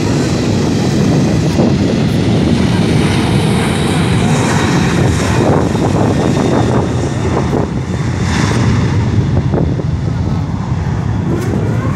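Jet engines of a Boeing 737-800, its CFM56-7B turbofans, running as the airliner taxis: a loud, steady noise with a rising whine near the end.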